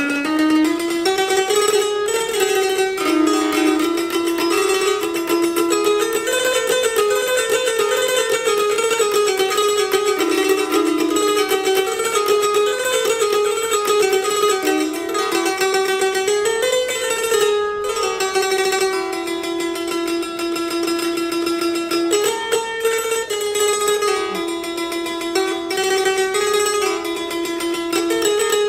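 Simsimiyya, an electrified lyre, strummed in a continuous run of quick notes, its tune stepping up and down without a break.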